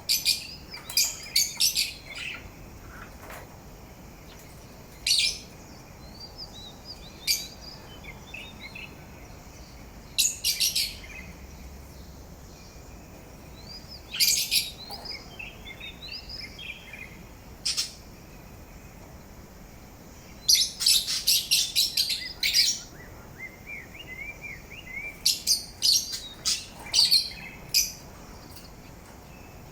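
Parrot singing: loud, sharp high chirps in short clusters every few seconds, with softer warbling whistles between them.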